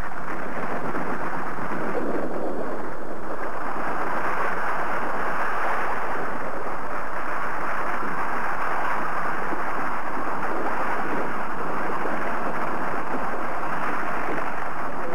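Steady rushing, hissing noise that runs without a break or change in level: a television sound effect for a building being eaten away and crumbling.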